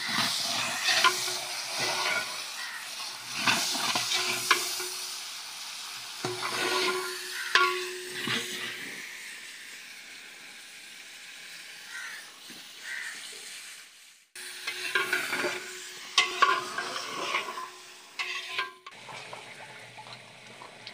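A long iron ladle stirring and scraping inside a large metal degh of chicken curry cooking over a wood fire, with repeated metal-on-metal scrapes and clicks over the sizzle of the curry. The stirring breaks off briefly about 14 seconds in, then resumes.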